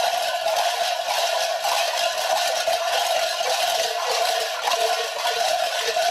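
Many kuker costume bells clanging and rattling together without a break, a dense metallic jangle.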